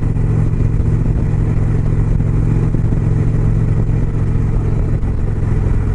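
2018 Indian Springfield's Thunder Stroke 111 V-twin running steadily at highway cruising speed, with a steady rush of wind and road noise.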